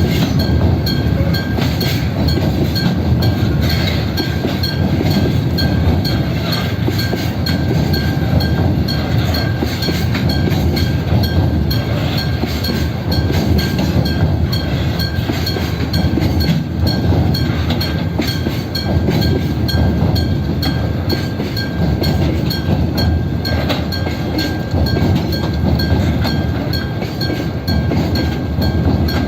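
A train passing over a Japanese railway level crossing: a steady loud rumble of wheels on rails with some clickety-clack. The crossing's warning bell rings in an even beat above it.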